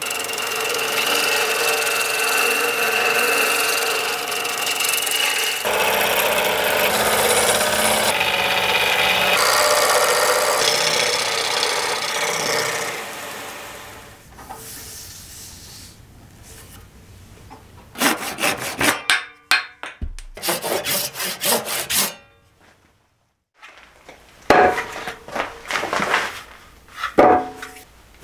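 Wood lathe turning a cork-and-epoxy-resin blank, a turning tool cutting into it with a steady rushing noise and a steady high tone; the cutting fades out about two-thirds of the way through. Near the end, after a short silence, come clusters of short sharp handling sounds.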